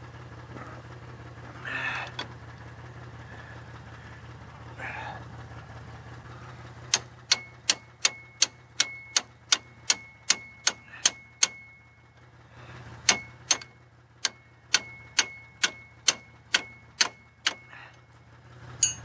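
Two runs of rapid hammer blows on a seized brake drum, about three ringing metal strikes a second, each run lasting about four seconds with a short pause between. They are meant to knock loose a drum whose brake shoes have locked onto it. A car engine idles underneath as a steady low hum.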